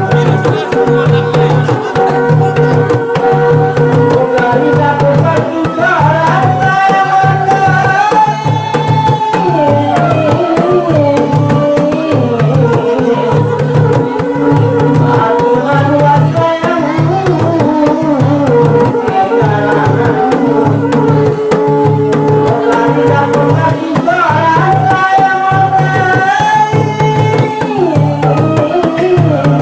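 Ronggeng Pasaman music: a hand drum keeps up a steady, repeating beat under a melody of long held notes that slide from pitch to pitch.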